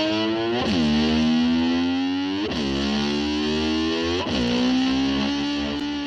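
Distorted electric slide guitar imitating a motor scooter's engine. Three times, about two seconds apart, its pitch dips sharply and then climbs slowly, like an engine revving up through the gears.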